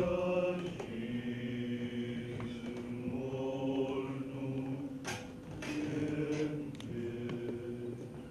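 Slow chanted singing: voices holding long notes that step to a new pitch every second or two, with no beat. A few short noises, such as coughs, about five seconds in.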